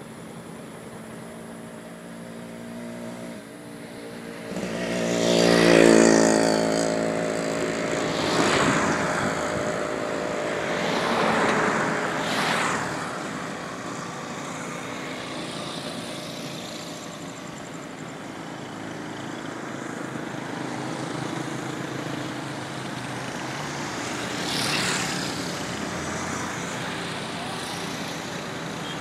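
Road traffic passing close by: one vehicle's engine swells to the loudest point about six seconds in and fades away, then several more vehicles swish past, twice in quick succession and once more near the end.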